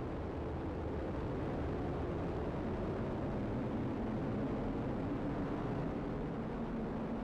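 Atlas V rocket's main engine and solid rocket boosters firing during ascent just after liftoff, a steady low noise with no breaks.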